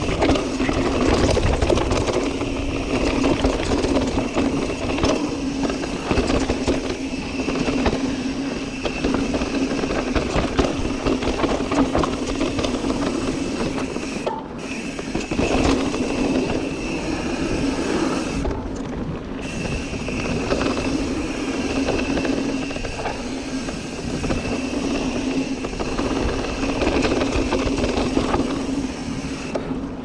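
Mountain bike riding down a rough dirt trail: tires rolling over dirt and rocks and the bike rattling with many small knocks. A steady buzzing tone runs underneath.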